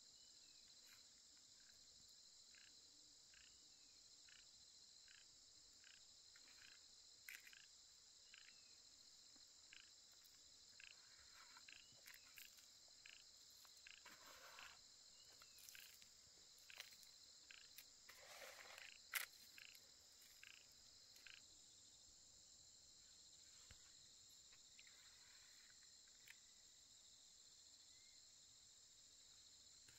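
Faint, steady high chorus of insects in the fields. Over it run short regular pulses, a little more than one a second, for about the first two-thirds, along with a few brief rustling noises near the middle and one sharp click a little past the middle.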